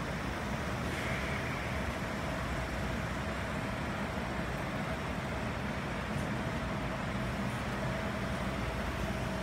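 Steady background rumble and hiss with a faint, thin steady hum.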